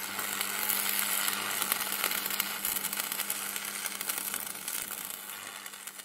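Outro sound effect: dense crackling, static-like glitch noise over a steady low hum, slowly dying away toward the end.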